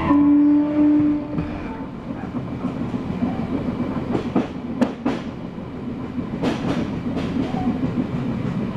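Odakyu 3000-series electric train heard from inside the car: a steady motor tone dies away about a second in as power is shut off. The train then rolls on with wheel and track rumble, and the wheels clack over rail joints several times.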